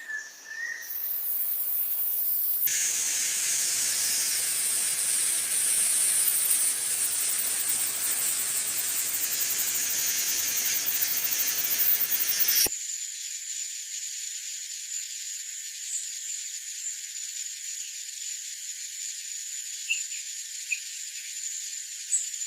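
Rainforest insect sound layered into a soundscape: a dense high hiss that cuts off abruptly about thirteen seconds in, giving way to a thinner hiss with one steady high-pitched trill.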